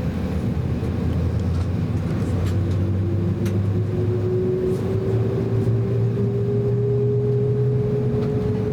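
Cabin noise inside an Embraer E190 jet on the ground: a steady engine hum, with a tone that starts rising slowly in pitch about two and a half seconds in.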